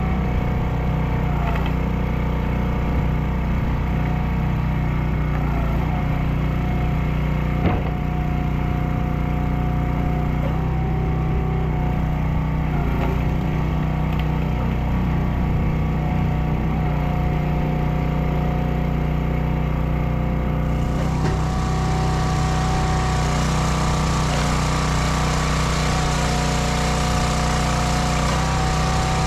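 Hydraulic log splitter running steadily under load while splitting maple rounds, with a single sharp crack about eight seconds in. A higher hiss joins the steady hum about two-thirds of the way through.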